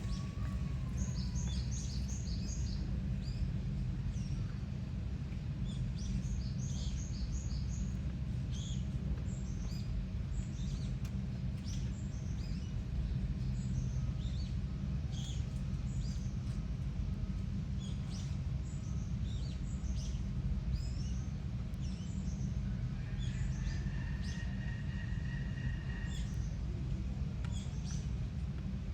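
Small birds chirping in short, quick runs of high notes over a steady low rumble of background noise.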